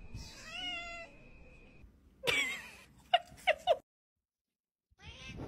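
Domestic cat meowing: one longer meow, then three short quick meows in a row, and another meow near the end.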